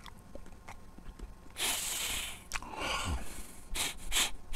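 A man breathing in deeply through the nose, then sniffing several times in short quick sniffs, smelling food.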